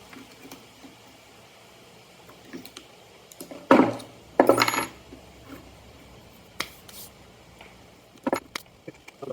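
Metal tools and small trimmer parts being handled: scattered clicks and two loud rattling clatters about four seconds in.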